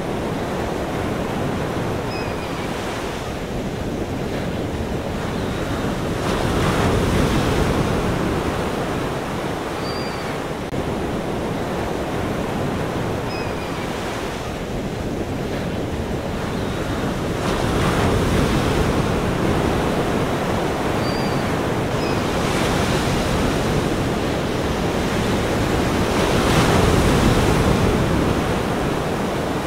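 Ocean surf: a steady wash of breaking waves that swells and ebbs every few seconds.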